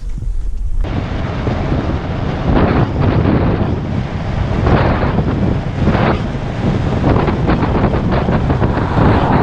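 Wind buffeting the microphone, a loud rumbling rush that starts suddenly about a second in and surges in gusts every second or two.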